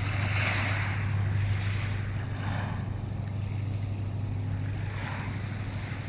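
Small waves of a calm sea washing onto a pebble beach, three soft washes about two and a half seconds apart, the first one the loudest. Under them runs a steady low hum.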